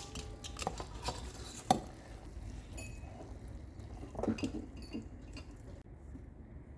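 Clinks and light scrapes of a utensil against a glass bowl of hot sugar syrup, with one sharper knock about two seconds in and another cluster of clinks near the middle.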